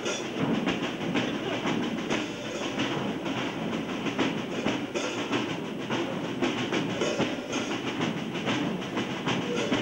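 Church brass band with drums playing: a steady drum beat over a dense, blurred wash of brass.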